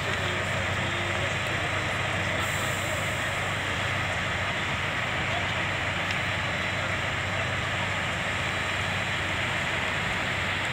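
Fire engines running at a burning wooden workshop: a steady low engine hum under a steady rushing noise from the blaze.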